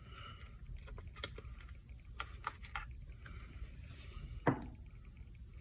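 Faint scattered clicks and taps of a plastic radio transmitter case being handled with small tools, with one louder knock about four and a half seconds in.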